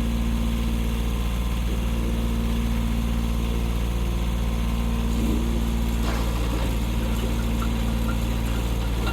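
Engine idling steadily with a deep, even hum.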